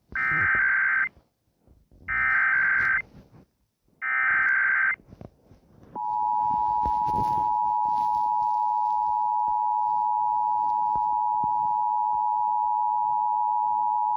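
Emergency Alert System broadcast signal: three buzzy data bursts of about a second each, the SAME header, then the steady two-tone attention signal held for about eight seconds.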